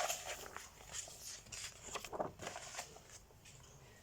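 Paper rustling with a few light knocks, as a page of a picture book is handled and turned.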